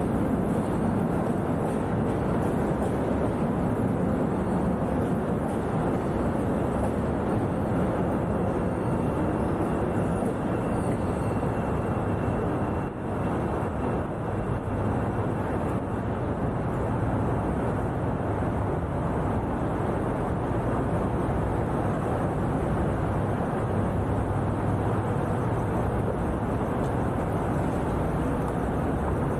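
Steady, even rumble of city and station ambience, mostly low in pitch, with a faint high tone for several seconds around the middle.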